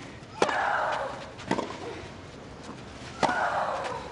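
Tennis rally: three sharp racket-on-ball strikes, the first and last each followed by a player's drawn-out shriek of about a second.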